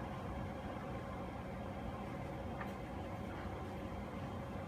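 Steady background hum with a faint single tick about halfway through.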